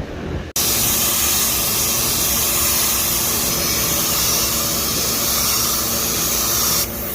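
Etching primer being sprayed onto bare metal of a rust repair: a steady, even hiss that starts sharply about half a second in and stops near the end.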